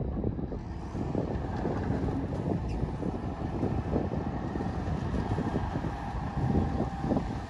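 Heavy diesel earthmoving machinery running, a dense steady low rumble with a faint steady whine in the second half.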